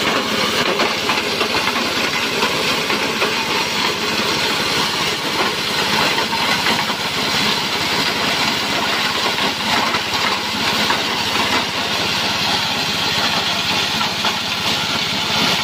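Small petrol engine driving a multifunction chopper-grinder, milling dried cassava (gaplek) into flour as it is fed into the hopper. A steady, dense mechanical din with no pauses.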